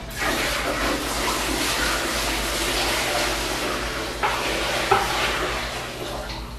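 Water-mixed cutting coolant (about 5% concentrate) pouring from a plastic pail into a CNC mill's coolant tank: a steady splashing pour that tapers off near the end, with two short knocks about four and five seconds in.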